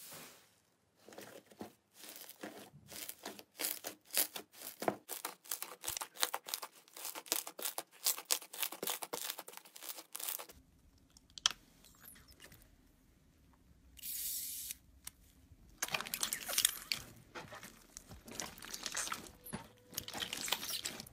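Slime being pressed, pulled and squeezed by hand, with dense, fast crackling and popping. It quietens for a few seconds near the middle, then crackles again.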